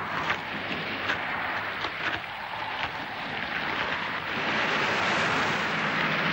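Steady rushing noise with a few light knocks in the first two seconds, growing louder from about four seconds in.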